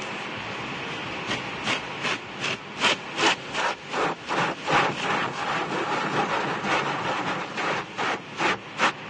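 Automatic car wash working over a truck: a steady rush of spray and machinery with a run of quick rhythmic strokes against the body, about two or three a second, starting about a second in and stopping just before the end.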